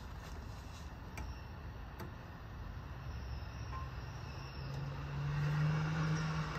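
A low, steady engine hum that grows louder from about five seconds in, over a steady background, with two light clicks about one and two seconds in.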